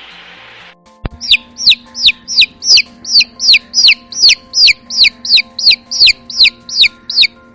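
A chick peeping loudly in a steady run of short notes, each falling in pitch, about three a second, starting about a second in.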